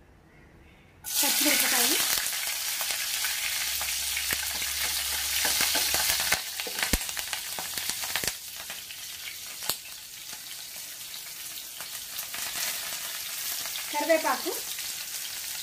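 Ingredients go into hot cooking oil in a pan, setting off a sudden loud sizzle about a second in. The sizzle settles into steady frying with crackles and stirring.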